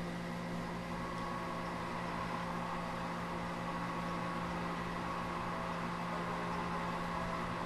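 A steady low hum with hiss, unchanging throughout.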